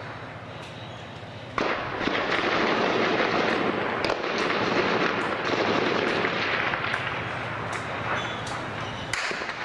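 Gunfire in street fighting: scattered single shots, then about a second and a half in a sudden dense crackle of firing that keeps on, with sharp separate shots standing out through it.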